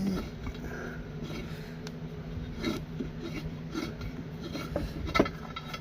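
Metal hand tools clinking and scraping against fasteners while a part is loosened, with scattered sharp clicks and one louder clink about five seconds in.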